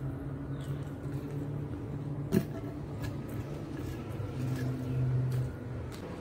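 Eating by hand from a plate: fingers picking at prawns and food, with a few small clicks and one sharp click about two and a half seconds in. Under it runs a low steady droning hum that swells briefly near the end.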